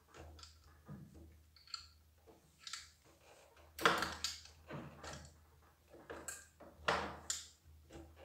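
Flat screwdrivers scraping and clicking against the plastic pump housing of a Nilfisk E 140.3 pressure washer while prying out the metal U-pin: a series of short scrapes and knocks, the loudest about four seconds in and around seven seconds.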